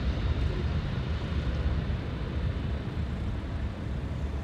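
Low, steady rumble of a Lockheed C-5 Galaxy's four turbofan engines, fading slowly as the departing transport climbs away.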